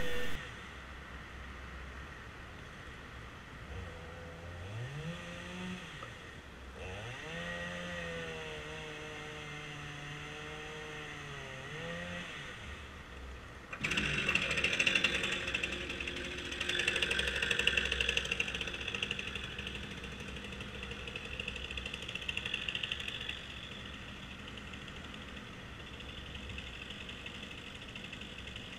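Faint two-stroke chainsaw cutting firewood logs: it revs up twice and then holds high revs in a cut for several seconds. About halfway through a louder, rasping stretch of sawing sets in and rises and falls with the cuts.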